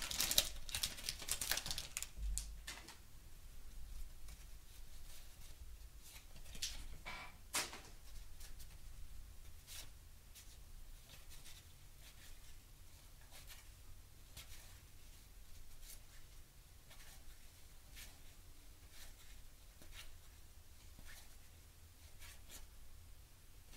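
Wax-paper wrapper of a baseball card pack crinkling as the stack of cards is pulled out, a dense crackle in the first few seconds. Then soft, scattered ticks and slides of cardboard trading cards being flipped through one at a time.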